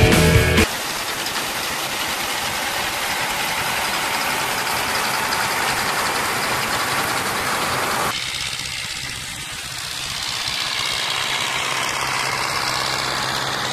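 Rock music ending less than a second in, then a Claas Consul combine harvester running close by while cutting wheat, a dense steady noise. About eight seconds in this gives way to a Zetor 7745 Turbo tractor's four-cylinder turbo diesel running steadily with a low hum as it pulls a straw wagon.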